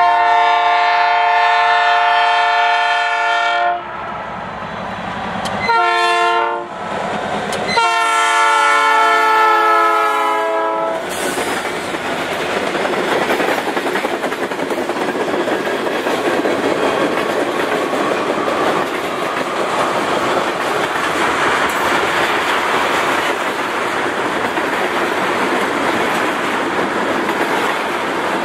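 Freight locomotive air horn sounding a multi-note chord: a long blast, a short one, then another long blast. After that come the steady rumble and clatter of freight cars rolling past.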